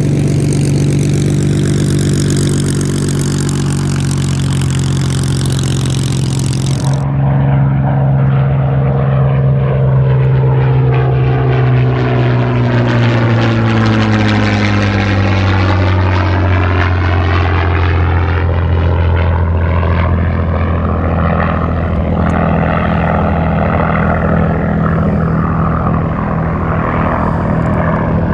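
Supermarine Spitfire's Rolls-Royce Merlin V12 engine running at high power. Its note drops in pitch about halfway through.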